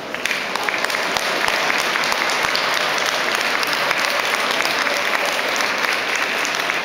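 Audience applause that starts suddenly and carries on steadily: a dense crackle of many hands clapping.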